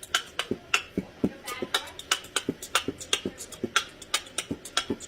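Parrot making a rapid series of sharp clicks, about four to six a second, in an uneven rhythm.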